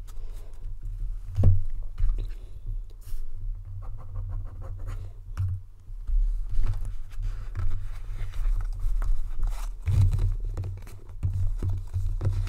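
Tarot cards being shuffled and handled on a table: scratchy, scraping card sounds with many small clicks and soft low bumps throughout.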